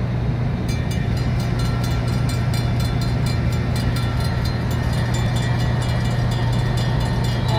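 Railroad crossing's Safetran hybrid electronic bell starts dinging rapidly about a second in, several strikes a second, warning that a train is coming. Under it runs a steady low hum.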